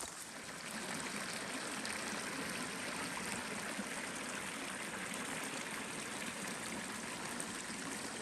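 A creek flowing steadily, an even, continuous rush of water.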